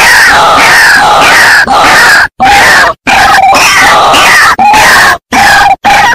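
White-breasted waterhens calling in a loud, harsh, repeated chorus of falling notes, about two a second, from a bird-lure recording. The sound cuts out abruptly for a moment several times.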